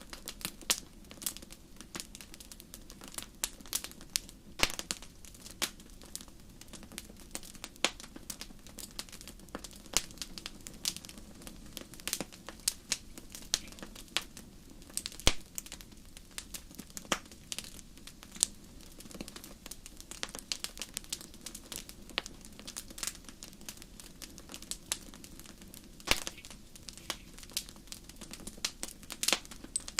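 Wood fire crackling: irregular sharp pops and snaps, often several a second, over a soft, steady low background.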